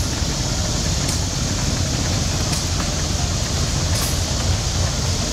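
An 1893 vertical steam engine, fed from an Orr & Sembower boiler, running steadily: a continuous noise with a strong low rumble. Three faint sharp ticks come about a second and a half apart.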